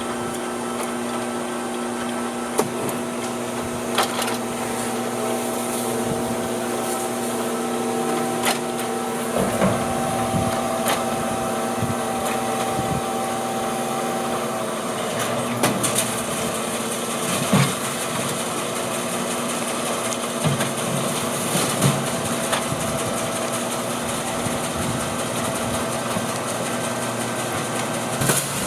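A bin washing machine running steadily with a motor hum, broken by occasional sharp knocks and clacks. The sound fills out lower down from about a third of the way in.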